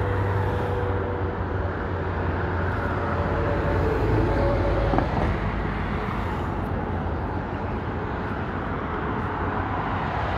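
Steady interstate highway traffic: a continuous wash of tyre and engine noise from vehicles passing at highway speed, with one passing a little louder about four to five seconds in.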